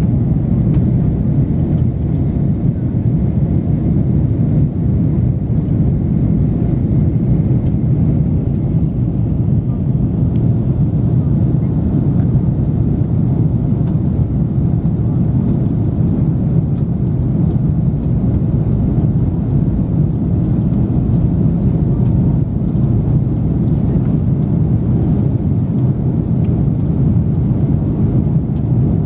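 Steady low rumble of an Airbus A330-300 in flight heard inside the passenger cabin: engine noise and airflow over the fuselage, even and unbroken.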